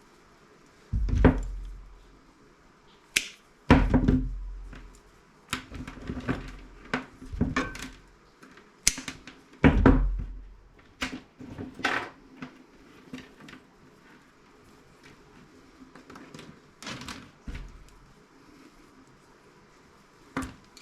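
Scattered knocks, clatter and heavy thuds of metal parts and tools being handled and set down on a workbench while a CRT monitor is dismantled, with quiet gaps in between.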